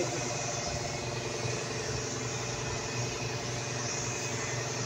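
Gravity-feed paint spray gun hissing steadily with compressed air as it sprays, over a steady machine hum.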